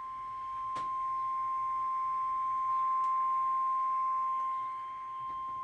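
NOAA Weather Radio 1050 Hz warning alarm tone, one steady pure high tone sent as a required weekly test of the alert system, heard over a weather radio receiver with faint static and a couple of soft clicks.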